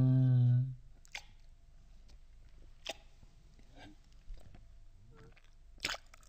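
A held musical note cuts off under a second in; then a handful of sharp, crisp crunches and clicks, a second or so apart, from green grapes being eaten for ASMR close to the microphone.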